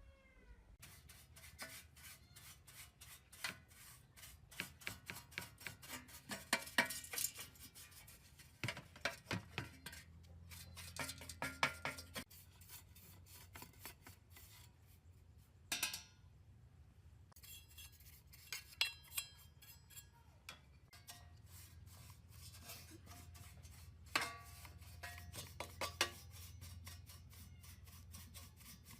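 Rapid scraping and clicking of hand tools working on the amplifier's parts, in dense runs with short pauses, some strokes ringing briefly like metal.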